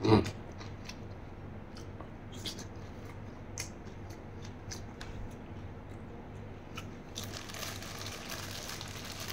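Close-up eating sounds: a mouthful of raw beef larb dressed in blood being chewed, with faint wet clicks and smacks of the mouth. A brief louder sound of the spoon going into the mouth comes at the very start, and a soft hiss joins in about seven seconds in.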